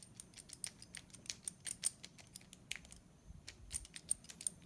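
Light, irregular clicks and ticks from a small hand-held mechanism with ball bearings being worked and tried after reassembly.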